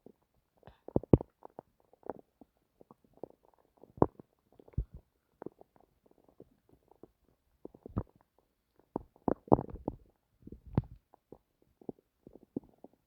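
Human stomach rumbling and gurgling: a string of short, irregular gurgles and pops, louder ones about a second in and again around ten seconds in.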